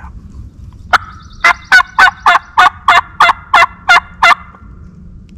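Turkey call worked at close range, imitating a hen: one sharp note, then a run of about ten loud, evenly spaced yelps, roughly three a second.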